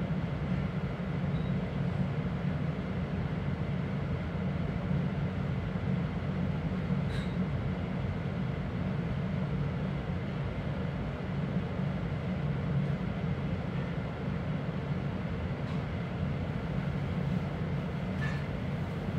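Steady low rumble of a regional express train carriage heard from inside as the train runs slowly along the track, with a couple of faint clicks.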